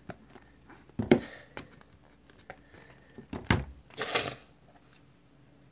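A stack of comic books being pressed and settled into a cardboard box laminated with clear plastic: a few knocks and taps, the sharpest about a second in and another about three and a half seconds in, with a short rustling scrape of paper and plastic around four seconds.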